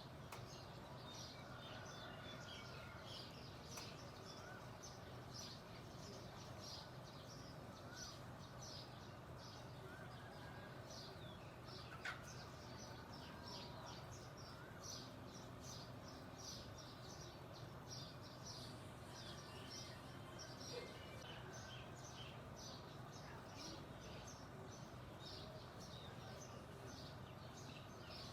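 Songbirds chirping, a dense, continual stream of short, high chirps from several birds, with one sharper, louder note about halfway through. A faint steady low hum runs underneath.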